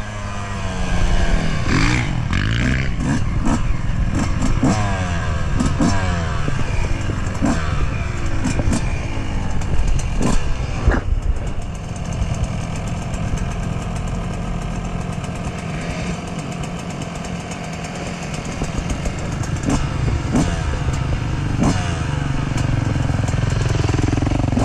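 2020 Yamaha YZ125's 125cc single-cylinder two-stroke engine revving up and down repeatedly as the bike is ridden, then settling to a steadier, lower running about halfway through. Near the end another dirt bike's engine revs close by.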